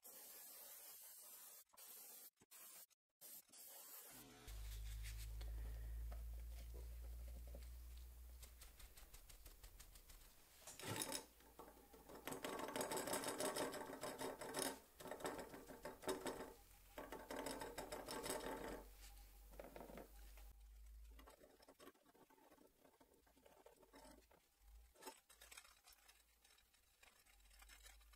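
A crumpled paper towel dabbing and rustling against a plastic swimbait lure in irregular bursts, laying on a blue paint wash. A low steady hum runs beneath it and stops about three-quarters of the way through.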